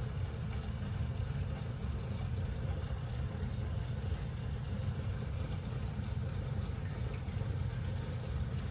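A steady low machine rumble, even and unbroken, like a motor running.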